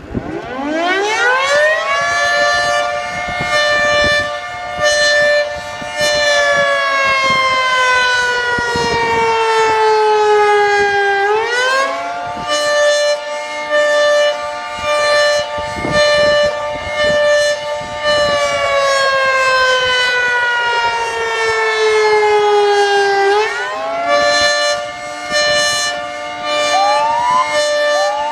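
Fire station's civil-defense-style warning siren sounding in long cycles. It winds up in about two seconds, holds a steady pitch for a few seconds, then slowly sinks before winding up again, three times over. Near the end a second, higher siren sweeps upward as a vehicle's siren starts.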